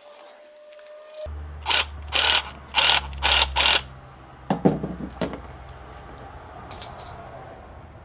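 Hose-clamp pliers working a small metal spring hose clamp onto a fuel-line hose: five quick sharp clicking strokes in a row, then a cluster of louder metallic clicks and snaps around the middle, and a couple of light clicks near the end, over a low hum that starts about a second in.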